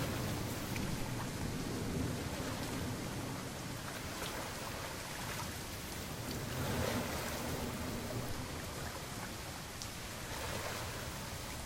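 Steady rain falling, over a low rumble that swells slightly about seven seconds in.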